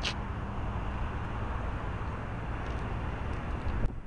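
Motorcycle engine idling with a steady low rumble. A sharp knock comes near the end, just before the sound cuts off.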